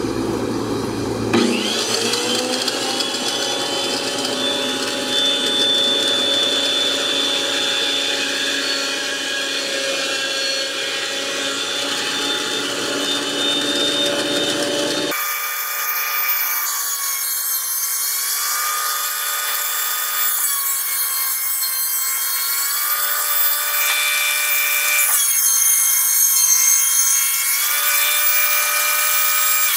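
Benchtop thickness planer cutting a wooden board: a steady, high motor whine over the cutterhead noise. The whine rises to speed about a second in, and in the second half it dips in pitch and recovers several times as the cutterhead takes load.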